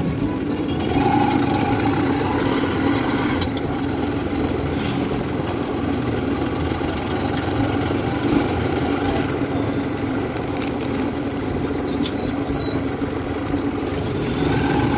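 Passenger tricycle's motorcycle engine running steadily as it is ridden along the street.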